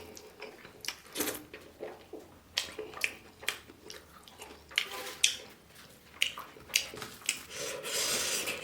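A person eating close to the microphone: chewing and wet mouth clicks, with a short sharp sound every second or so.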